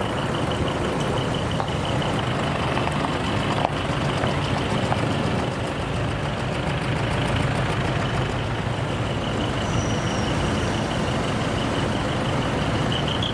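Diesel engine of a small box truck with twin rear exhaust pipes running steadily with a low rumble. A repeating high beep sounds over it and grows louder near the end.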